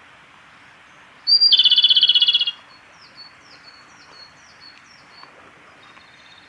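Male Japanese robin singing: one high opening note running straight into a loud, fast rattling trill of about a second, its 'hin-karakarakara' song. Fainter short falling whistles follow, about two a second.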